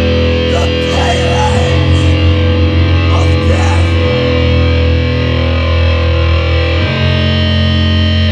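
Metal band playing live, with loud distorted electric guitars holding sustained chords that change about four and seven seconds in.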